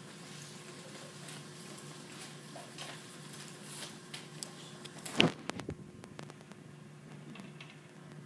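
Classroom room tone with a steady low hum and faint rustling. There is one sharp knock about five seconds in, followed by a few light clicks.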